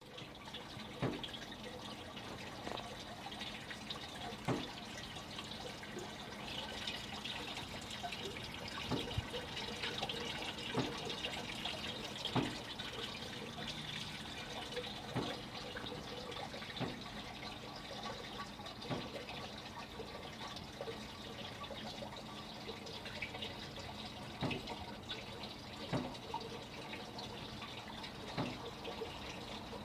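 Water running in a steady trickle, with single drips or splashes standing out every second or two.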